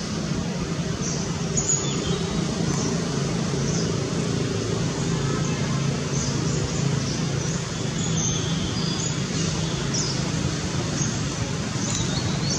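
A steady low mechanical hum, with a few short high bird chirps over it.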